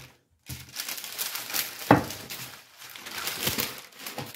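Parchment paper crinkling and rustling as the top sheet is handled and peeled back off rolled-out dough. A single sharp knock about two seconds in, the loudest sound, as the wooden rolling pin is set down on the counter.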